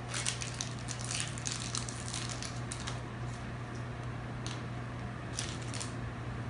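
Small plastic toy pieces and packaging being handled: scattered light clicks and crinkling, busier in the first half, over a steady low hum.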